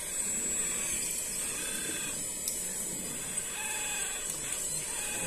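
Electric hydraulic pump of a radio-controlled hydraulic excavator whirring steadily as its arm lowers and the bucket digs into sand.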